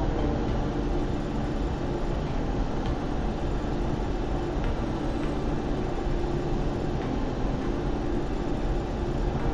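Steady road and engine noise of a car cruising on a highway, heard from inside the cabin.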